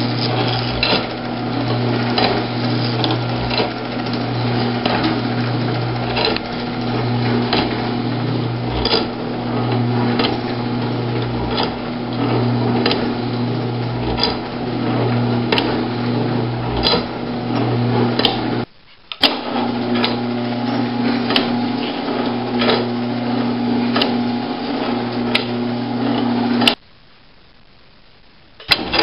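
Garage door opener electric motor running with a steady hum, driving a bicycle chain and crank, with a sharp metallic click a little more than once a second. The sound drops out briefly twice, the second time for about two seconds near the end.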